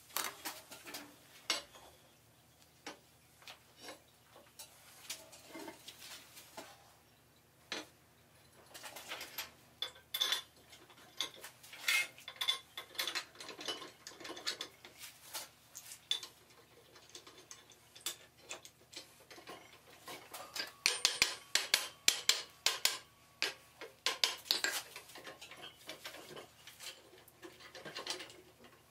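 Scattered light metallic clicks and clinks of iron stock and tools being handled around an anvil, thickest in a run of quick clinks about two-thirds of the way through. These are not heavy hammer blows.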